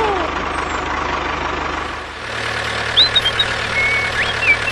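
Tractor engine running steadily, dipping briefly about two seconds in and then carrying on. A few short high chirps sound near the end.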